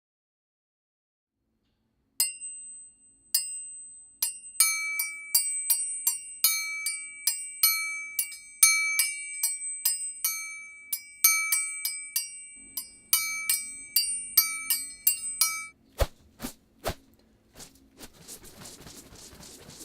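Bright, bell-like mallet-percussion music in the manner of a glockenspiel: a quick string of struck, ringing notes, two or three a second. It stops near the end, giving way to a few sharp clicks and a soft hiss.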